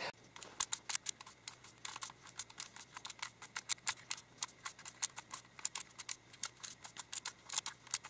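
Xiaomi Giiker smart Rubik's cube's magnetic plastic layers clicking as they are twisted in quick succession: rapid, irregular clicks, several a second.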